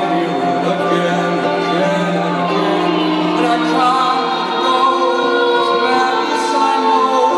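Live music with singing voices over slow, long-held chords.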